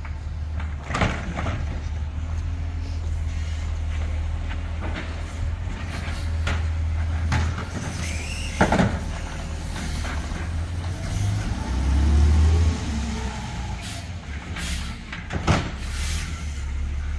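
Garbage truck's diesel engine running steadily, with a few sharp bangs and the engine revving up for about a second around two-thirds of the way in.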